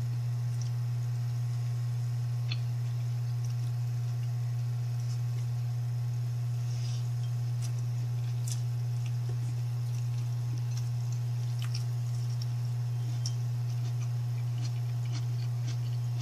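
A steady low hum throughout, with faint, scattered clicks and smacks from someone eating by hand.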